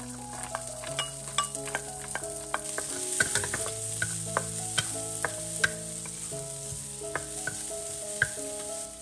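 Diced garlic scapes sizzling in hot oil in a wok, stirred with a wooden spatula that clicks and scrapes against the pan many times.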